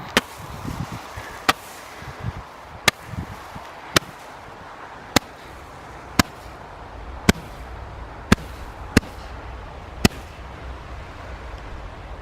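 Roman candle firework firing ten shots in a row, one sharp pop about every second, the last a little after ten seconds in.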